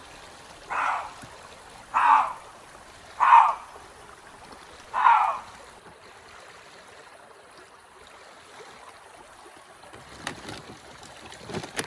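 Stream flowing steadily, with four short loud noises in the first five seconds, each lasting under half a second, and a couple of fainter ones near the end.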